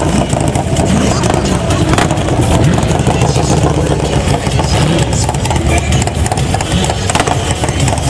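Custom Harley-Davidson bagger's V-twin engine idling, loud and steady.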